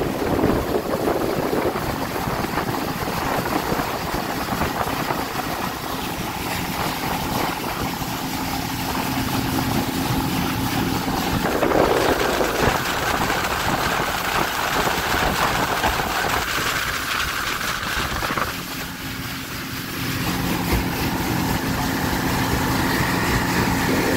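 Speedboat engine running steadily under way, with water rushing and spraying past the hull. The engine note shifts a couple of times, with a short dip in loudness about nineteen seconds in.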